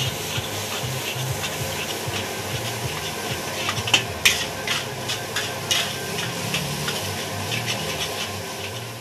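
Fried rice stir-fried in a wok: a steady sizzle with a metal spatula scraping and clacking against the pan over and over, two sharper clanks about four seconds in.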